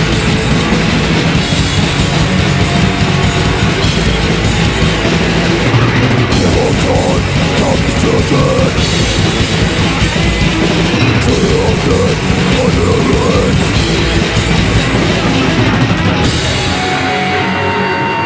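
A heavy punk/metal band playing live, with distorted guitars, bass and drums. Near the end the drums and bass drop out, leaving a few steady guitar tones ringing.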